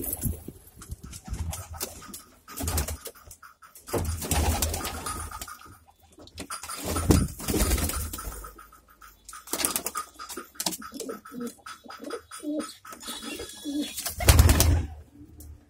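Domestic pigeons cooing in their nest boxes, with repeated bursts of low rumble and rustling.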